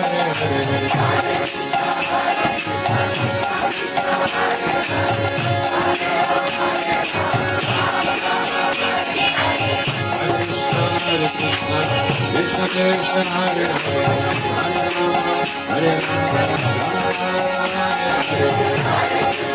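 Kirtan music without singing: a harmonium holds sustained chords while karatalas (small brass hand cymbals) keep a steady clashing beat.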